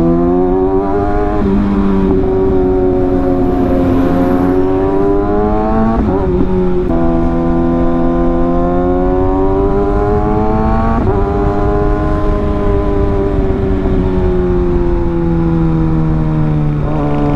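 Kawasaki ZX-6R's inline-four engine running as the bike is ridden. The engine note slowly rises and falls with the throttle and changes pitch abruptly about six, eleven and seventeen seconds in, over a heavy low rumble.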